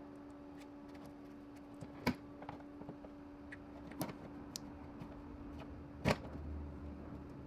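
A few sharp clicks and taps, about two seconds apart, as a small plastic LED side marker light is handled and pressed into its opening in a car's metal fender, the last one loudest; a steady low hum runs underneath.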